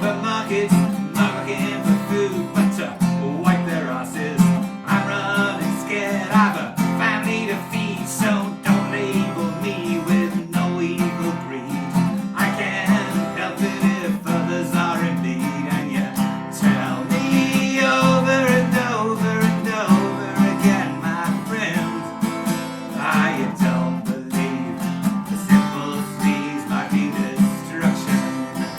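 Folk-rock music: a strummed acoustic guitar keeping a steady chord rhythm, with a wavering melody line above it.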